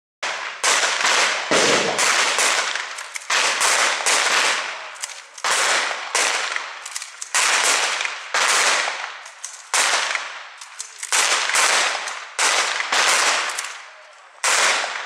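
Gunfire: about twenty single shots at irregular intervals, each a sharp crack with a short echo.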